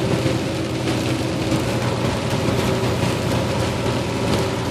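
Steady drone inside a semi-truck's cab at highway speed: the diesel engine's low hum mixed with tyre noise on the wet road and rain on the windshield.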